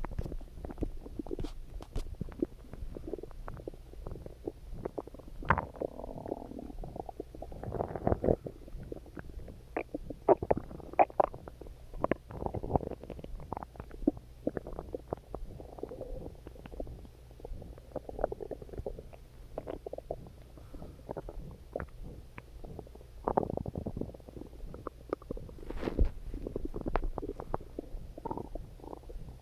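A hungry human stomach growling: irregular gurgles and quick little pops, with a few longer rumbling gurgles along the way.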